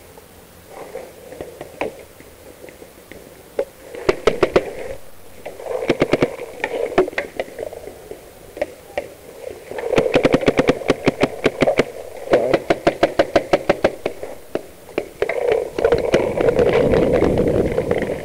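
Paintball markers firing in rapid bursts of about ten shots a second, several bursts with short pauses between. A rushing noise lies under the last burst.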